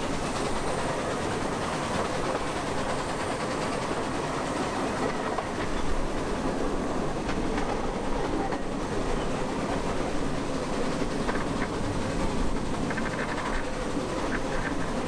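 Liliputbahn miniature railway train running along the track, heard from aboard an open carriage: a steady rumble of wheels on rails with occasional clickety-clack clicks over the rail joints.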